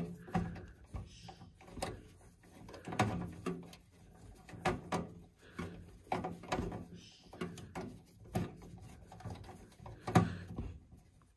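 Hand screwdriver driving a motherboard mounting screw into a PC case: a string of short clicks and scrapes, roughly one a second, as the screwdriver is turned in short twists. The loudest comes near the end.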